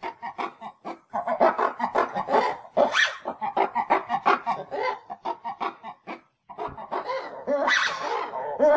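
Ring-tailed lemurs calling: a rapid run of short calls, one after another, breaking off briefly a little after six seconds before starting up again.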